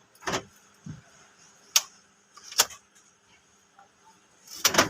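Sharp mechanical clicks from the car's key and locking controls being worked while a remote key is coded to the central locking: single clicks about a second apart, then a quick cluster near the end.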